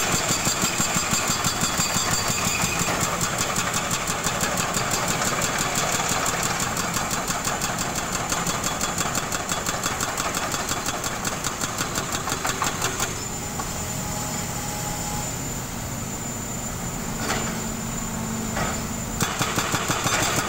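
Excavator-mounted hydraulic breaker hammering a concrete road slab in rapid, even blows over the excavator's diesel engine. The hammering stops about two-thirds of the way through, leaving the engine running with a couple of short bursts, then starts again near the end.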